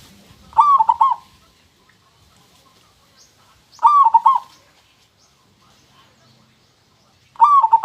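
Zebra dove (perkutut) cooing: three short phrases of quick ringing notes, each about half a second long, roughly three and a half seconds apart.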